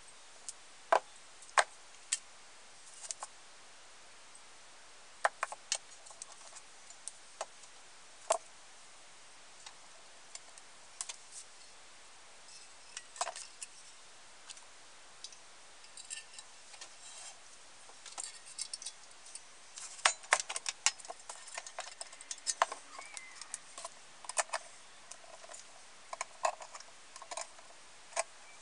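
Metal camp-stove parts clicking and clinking as they are handled and fitted back together: scattered sharp clicks, busiest a little past the middle.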